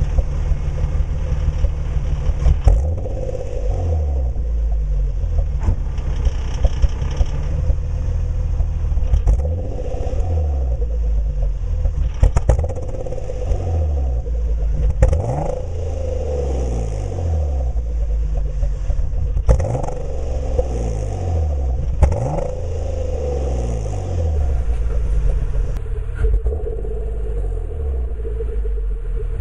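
Twin-turbo Infiniti G35 3.5-litre V6 running through an HKS exhaust, revved up and let fall back about every three seconds, with sharp cracks at several of the rev peaks. The engine has a misfire issue.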